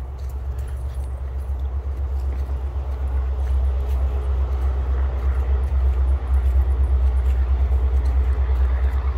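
A loud, steady low rumble with a fast flutter to it, growing louder about three seconds in.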